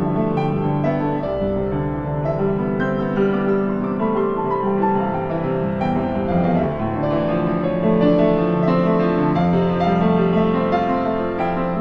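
Instrumental background music with piano, slow and gentle, with held notes.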